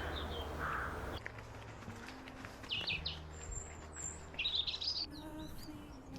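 Small birds chirping: a few short high chirps about three seconds in, a thin high note, then another quick run of chirps, over a quiet outdoor background.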